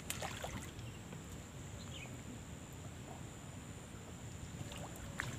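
Water sloshing and lapping around a man wading chest-deep, with a few small splashes near the start and again near the end, over a steady thin high-pitched whine.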